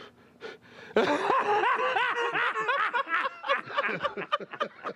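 A man laughing hard: a long run of rapid, high-pitched cackles beginning about a second in.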